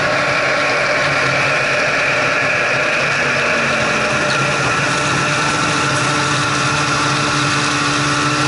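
Snowmobile engine running steadily while the sled cruises along at an even speed.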